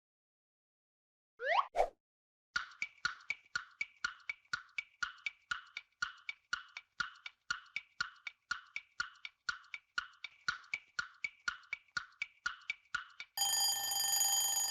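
Quiz countdown timer sound effect: a short rising whoosh, then a clock ticking steadily at about three and a half ticks a second, ending near the end in a ringing alarm tone that signals time is up.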